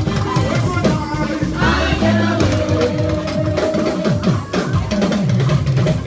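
Dance music with a driving drum kit beat, bass drum and snare, and some singing.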